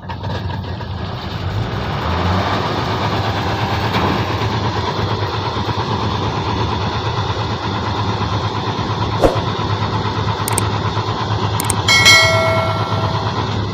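Heavy diesel farm engine running steadily under power, with a short high-pitched tone about a second long near the end.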